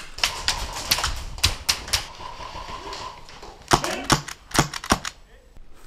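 Airsoft firefight inside a wooden barn: a rapid, irregular clatter of sharp clicks and cracks, with a group of four louder cracks about four seconds in.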